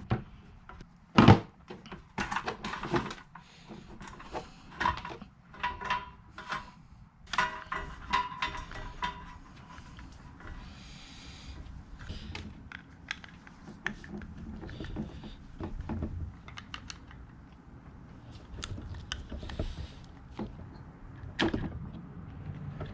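Knocks, clicks and clatter of parts being handled as the gear housing of a Ryobi garage door opener is pulled out of its rail. The loudest knock comes about a second in, the knocks come thickly for the first ten seconds or so, then the handling is quieter, with one more knock near the end.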